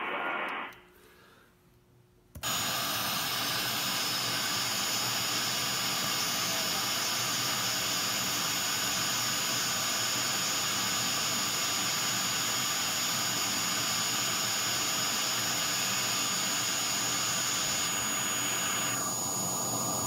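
Radio receiver static from an RTL-SDR tuned near the Drake TR4's 9 MHz IF with no signal present: a steady loud hiss with a faint high whistle running through it. The earlier band-limited receiver audio dies out within the first second, and after about two seconds of near quiet the hiss cuts in abruptly.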